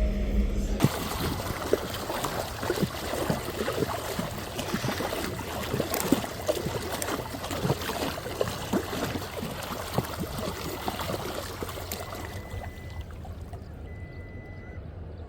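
Water trickling and splashing, a dense run of small splashes that fades over the last few seconds. About a second in, a steady motor hum cuts off.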